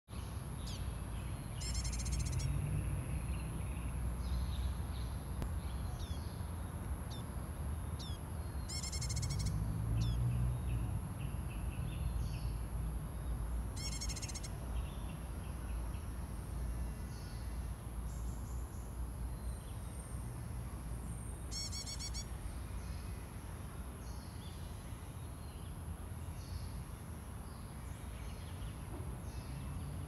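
Common tailorbird calling: four short bursts of rapid repeated high notes, several seconds apart, with fainter short calls between them. A steady high thin tone and a low rumble run underneath.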